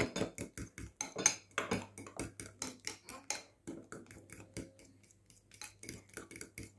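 Metal fork stirring mayonnaise sauce in a bowl, clinking against the bowl's side in quick repeated clicks, about four a second, with a short pause about five seconds in.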